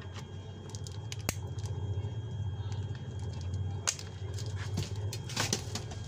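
Plastic handling noise and a few sharp clicks as a modular phone plug is pushed into the socket of an audio door phone's indoor unit, over a steady low hum.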